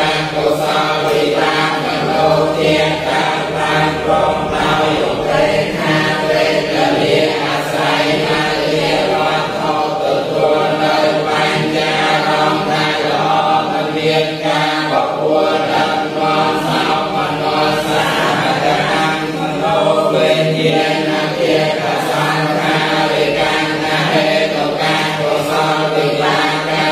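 Group of Buddhist monks and lay people chanting a text together in unison, reading from books: many voices in a continuous, steady recitation without pauses.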